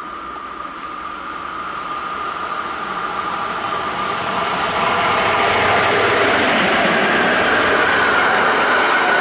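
A train approaching on the line, its running noise growing steadily louder over about five seconds and then holding loud as it draws close.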